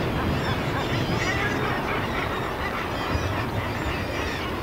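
Seabird colony calling: many short, overlapping harsh calls, thickest from about a second in through the middle, over a steady low rumble.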